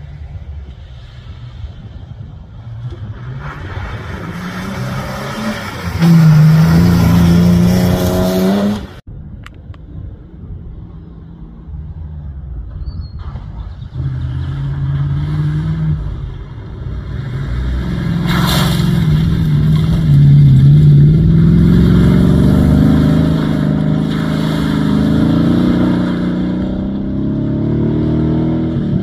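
Engines of off-road comp safari racers. One is revved hard with rising pitch as it powers through a loose sandy corner, and it cuts off abruptly about nine seconds in. Another engine then builds up and climbs in pitch as it accelerates along the track.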